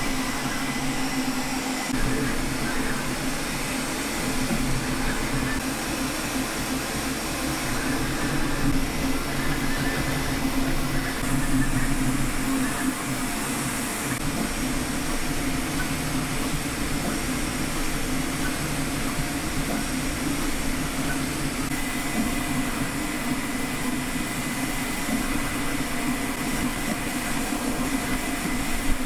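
Creality K1C 3D printer running a print at full speed: its cooling fans whir steadily under the sound of the stepper motors and belts moving the printhead rapidly back and forth, with a steady low hum and a thin high tone.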